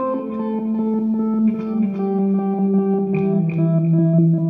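Electric guitar played through a DigiTech GNX3 multi-effects processor patch. A line of notes steps downward in pitch with a quick pulsing rhythm of repeated attacks.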